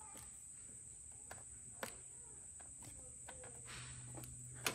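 Faint clicks and light handling noises from hands fitting wiring and plastic clips in a truck's engine bay, with a sharper click near the end. A steady high thin tone runs underneath.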